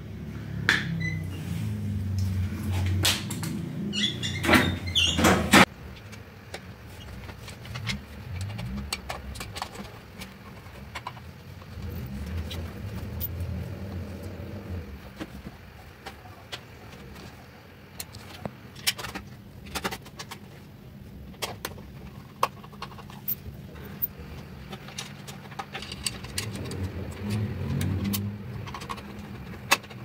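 Sharp clicks of pliers cutting and handling a wire at a ceiling fan's mounting. After an abrupt cut, scattered small clicks and taps of work on the fan follow over a low steady rumble.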